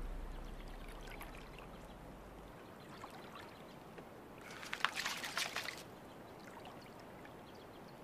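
Shallow water splashing and trickling as lions wade with a roan antelope kill, with a short burst of louder splashing about five seconds in.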